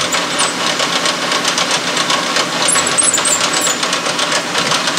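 Metal lathe running, a steady mechanical clatter with fast, even ticking.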